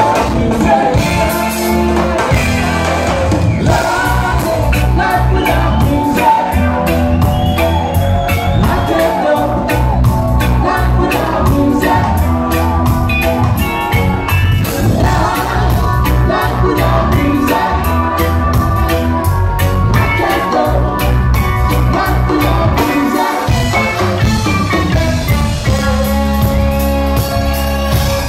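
Live reggae band playing, with a heavy repeating bass line, drums, electric guitars and keyboards under a lead singer.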